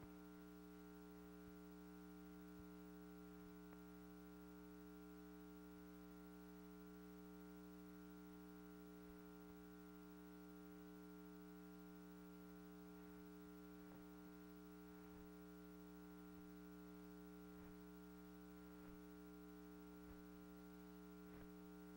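Near silence: the film has no sound track, only a faint steady hum with a few faint ticks.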